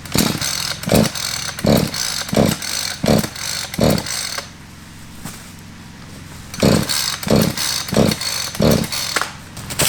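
Chainsaw being pull-started again and again without catching: six quick yanks on the starter cord, a short pause, then four more. The engine is flooded.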